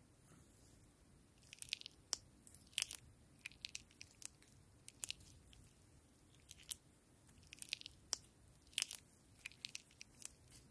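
Butter slime being squeezed and kneaded by hand, giving irregular sharp little clicks and pops that start about one and a half seconds in.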